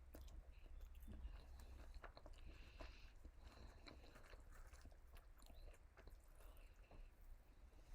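Faint, close-up chewing of KFC food, with many small scattered mouth clicks and crunches.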